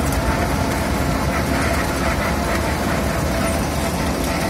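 Wirtgen W 100 cold milling machine at work: its diesel engine and milling drum run as a steady, heavy drone with a constant whine over it while it cuts into the asphalt road surface.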